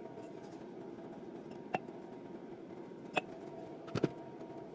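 Light metal clicks and knocks of fuel injection pump parts being handled on a workbench: one about two seconds in, one a little after three seconds, and a quick double knock near the end, over a steady low hum.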